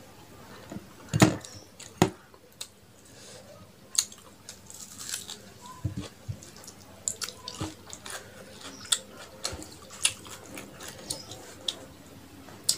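Close-miked eating by hand: wet mouth clicks and chewing of rice and curry, with fingers squishing and mixing rice on a metal plate. The sounds are short, irregular clicks, the loudest about a second in and again at two seconds.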